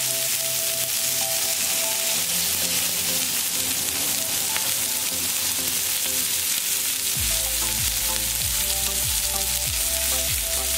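Beef slider patties sizzling steadily in oil on a hot griddle, with background music over it; a bass beat comes in about seven seconds in.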